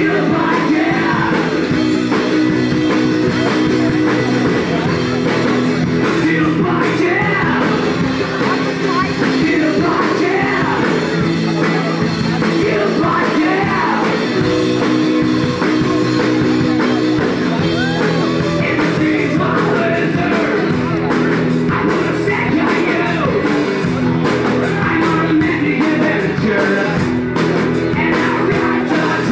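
Live rock band playing a song: drum kit and amplified instruments under a sung, partly shouted lead vocal, loud and steady.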